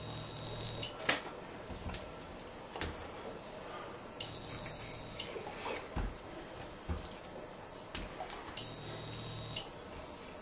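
An electronic alarm beeping: three steady high-pitched beeps, each about a second long, repeating about every four seconds. Faint knocks of a knife on a wooden cutting board come between the beeps.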